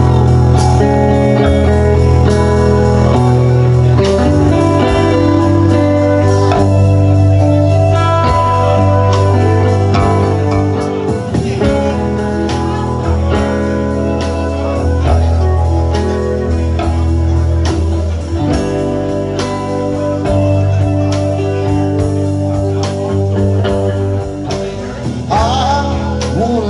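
Live band playing: electric guitar, electric bass, a Nord Electro keyboard and a drum kit.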